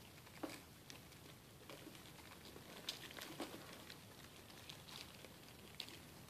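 Near silence: a steady low hiss with faint scattered clicks and light scratching, and a few sharper ticks standing out.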